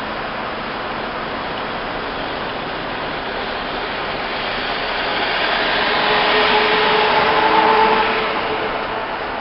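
Steady traffic and engine noise heard from inside a vehicle's cab while stopped. About five seconds in, a nearby vehicle's engine grows louder with a steady hum, then fades away near the end.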